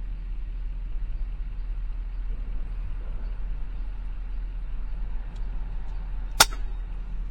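Steady low rumble, then a single sharp crack about six seconds in: the shot of a .22 FX Impact M3 PCP air rifle.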